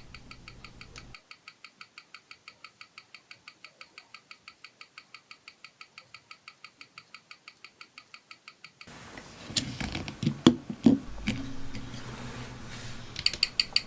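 Seagull ST1901 chronograph movement ticking evenly at about six beats a second, the ST1901's 21,600 beats per hour. About nine seconds in, the ticking gives way to irregular clicks and knocks of the watch being handled.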